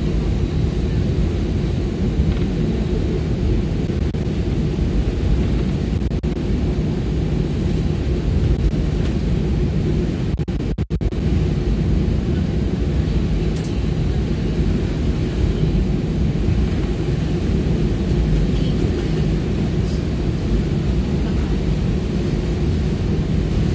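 Steady airliner cabin noise as the plane moves along the ground in heavy rain: a low, even engine drone with a hiss of rain and air over it. The sound drops out briefly about halfway through.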